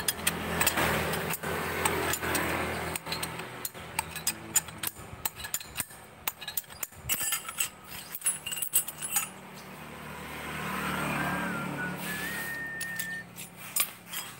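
Metal hand tools clicking, clinking and tapping against a Honda Vario scooter's CVT driven pulley and its shaft as it is taken apart. A motor vehicle's engine hums in the background at times, fading in again late on.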